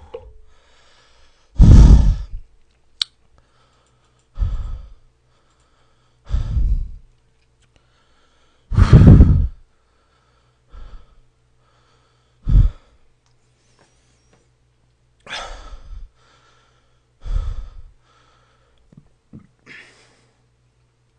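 A man breathing out hard, in loud puffs straight onto a close microphone, about every two seconds: heavy breathing while speed-drinking small bottles of yogurt drink.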